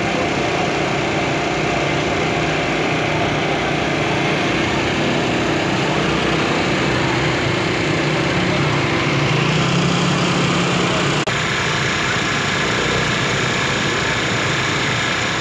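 A small engine running steadily with a droning hum, whose pitch shifts a little around the middle. The sound changes abruptly about eleven seconds in.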